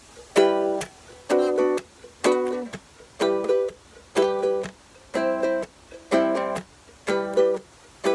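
Uma ukulele strummed in a reggae pattern: a down-up chord stroke about once a second, each cut short by a mute, with light muted clicks between strokes.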